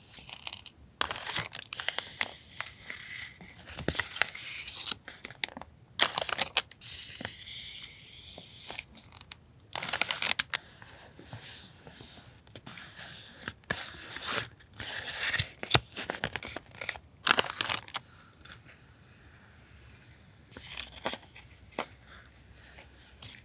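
Paper and plastic packaging being handled: crinkling and rustling in repeated bursts of a second or two, with quieter gaps between them.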